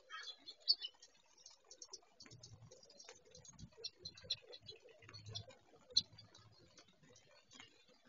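Faint, irregular ticks and clicks with a few short high chirps, from small birds feeding at a snowy backyard feeder.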